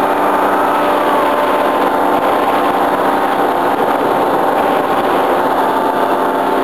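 Tandem paramotor trike's engine and propeller running steadily at flight power, its pitch easing down slightly over the first second or two.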